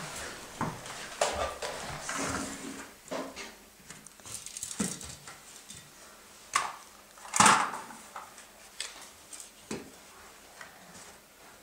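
Plastic toy guns being handled and set down in a row, giving scattered clicks and clacks as they knock against each other; the loudest clack comes about seven and a half seconds in.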